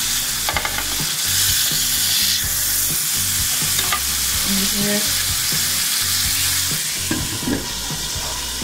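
Marinated chicken breasts sizzling steadily in oil and their own juices on a ridged grill pan, with a few short clicks of tongs against the pan as the pieces are turned over.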